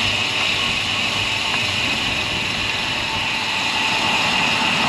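Steady road and traffic noise heard from a moving bicycle, an even hiss without any distinct events, which cuts off suddenly at the very end.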